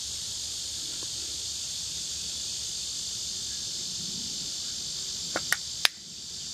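Steady high-pitched drone of a summer insect chorus. Near the end come three sharp clicks, the loudest last.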